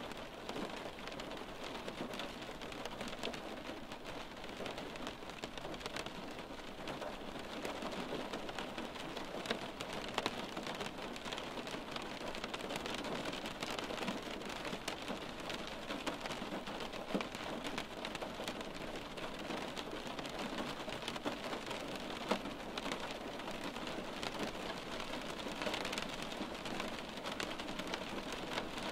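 Steady rain heard from indoors, drops pattering on window glass, with the odd louder single tap.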